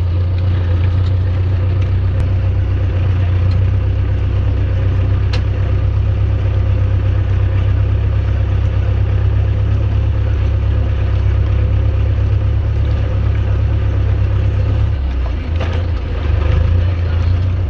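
Ursus 902 tractor's diesel engine running steadily under load while pulling a plough, with the engine note dipping briefly about fifteen seconds in.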